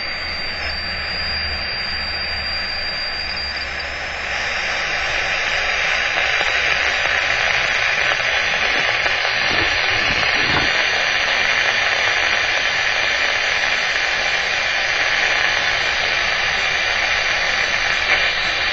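A steady static-like hiss that grows louder about four seconds in. For the first few seconds a faint high steady tone sits above it: the alarm of an RF/microwave detector.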